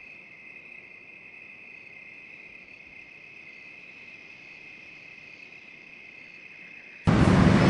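Steady, even chirring of crickets. About seven seconds in it cuts off abruptly into a much louder rushing noise.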